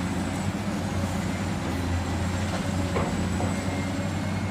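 A steady machine rumble with a hiss over it, engine-like and unchanging, that cuts in and out abruptly.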